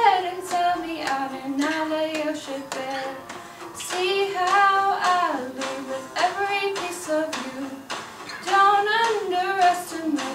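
A young woman singing solo and unaccompanied, holding notes and sliding between them.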